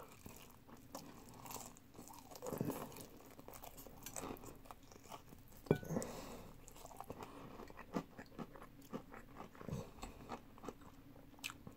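A person biting and chewing fried chicken off a drumstick: faint, scattered crunches and wet chewing sounds, with the sharpest crunch a little before six seconds in.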